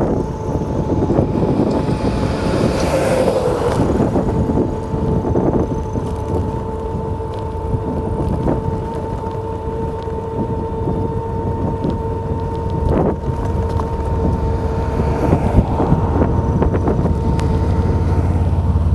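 Strong gale wind blasting across the microphone in a constant rumble, with a steady whistling tone held under it.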